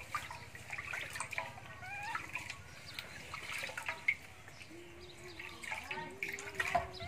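Water splashing and trickling into a steel basin as a baby macaque is washed by hand, with water poured over its head. A few faint high squeaky calls come through about two seconds in and again near the end.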